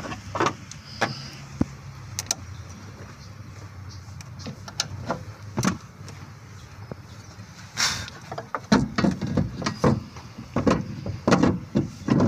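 Scattered clicks and knocks of hand tools and car parts being handled, coming thicker in the last few seconds, over a low steady hum.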